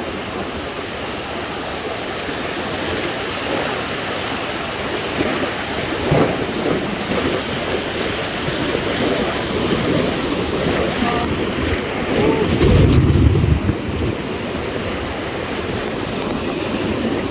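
Rushing white water of river rapids around an inflatable raft, a steady hiss of churning water. A louder low rumble about two thirds of the way in.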